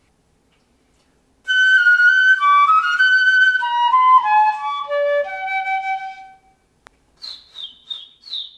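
Flute playing a run of held notes that steps downward in pitch, then, after a single click, four short high chirps that each fall in pitch.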